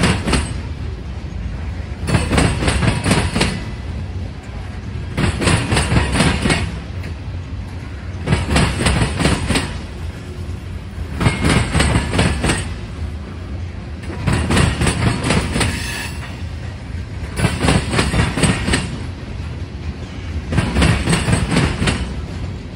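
Loaded covered hopper cars of a freight train rolling past at low speed, their wheels clattering over a railroad diamond crossing. The clacking comes in a burst about every three seconds, one group of wheelsets after another, over a steady rumble of the rolling cars.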